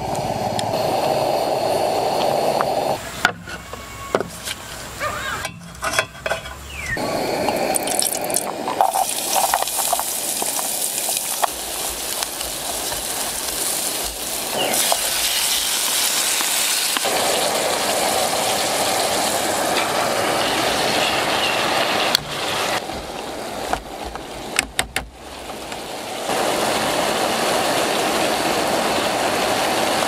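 Steady rushing of river water, dropping away twice for a few seconds while scattered clicks and knocks of handled camp gear take over.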